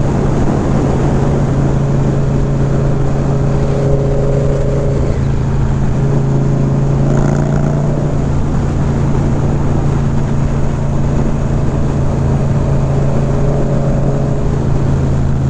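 Indian V-twin motorcycle engine running steadily at cruising speed on a long downhill grade, heard from the bike itself with road and wind noise over it.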